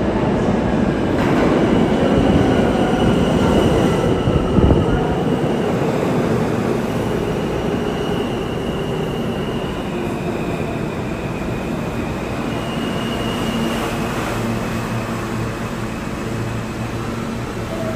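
A New York City Subway G train rolling into the station and slowing. A loud rumble of steel wheels on rail builds over the first few seconds, then settles into a steady running noise. Faint high wheel squeals and a slowly falling motor whine sound over the top.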